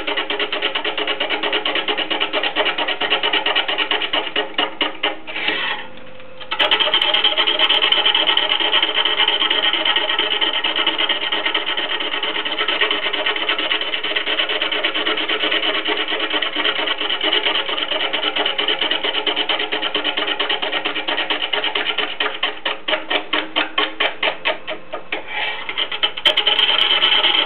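A hand-held turning tool cutting a large spinning wood blank on a wood lathe: a steady scraping rasp of wood being shaved, pulsing rapidly as the blank turns. The cut breaks off for about a second, about six seconds in, then resumes, and it turns lighter and more choppy a few seconds before the end.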